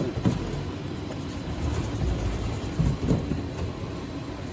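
Dog chew stick extruder line running, a steady low mechanical rumble.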